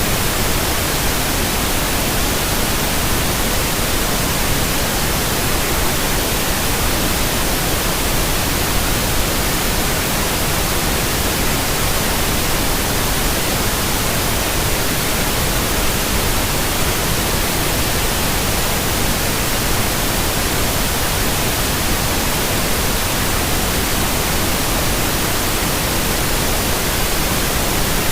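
Steady white noise: an even, unchanging hiss spread across all pitches, with no breaks or changes.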